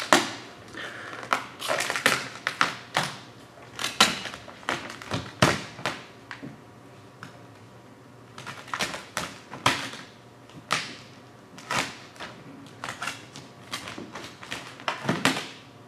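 Vinyl wrap film crackling and snapping as it is lifted and stretched, with a hard card squeegee scraping it down onto the hood, in irregular bursts of clicks and rustles.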